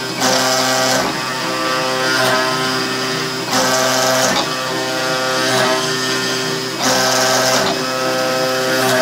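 Homemade CNC milling machine cutting a bend pattern into plywood: a steady motor whine with louder, hissy cutting passes that come and go every second or two.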